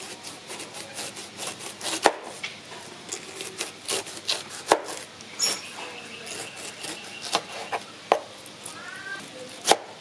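A large kitchen knife slicing the rind off a whole pineapple on a wooden cutting board. Irregular crisp cuts and knocks as the blade goes through the skin and meets the board, a sharp one about two seconds in and another near the end.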